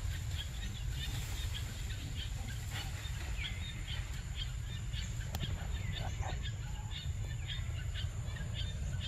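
Forest birds chirping and calling: many quick chirps with a few downward-sliding whistles. Underneath run a steady low rumble and a thin, steady high-pitched hum.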